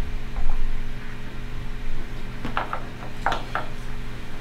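Dull thumps, then a quick run of small clicks and knocks about two and a half seconds in, as a plastic plug is forced into the end of a Van Dorn water sampler's rubber tubing, pressed down against a workbench. A steady low hum runs underneath.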